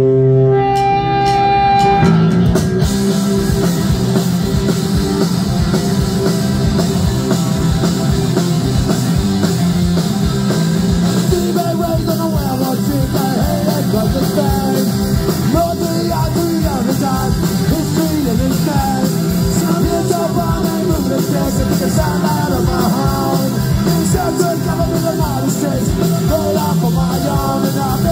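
Punk rock band playing live, loud: a held guitar chord rings out, then about two seconds in the drums and the rest of the band come in with a steady beat.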